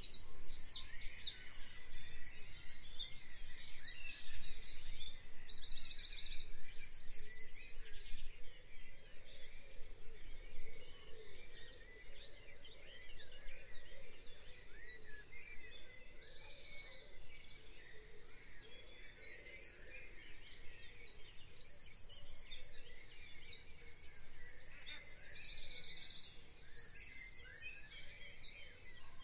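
Several songbirds singing in spring, overlapping high-pitched phrases of quickly repeated notes. The song is loudest and busiest in the first third.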